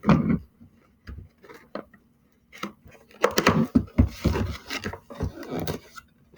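Toy packaging being handled and opened: plastic and cardboard crackling and rustling, with a string of knocks and clicks, busiest in the second half.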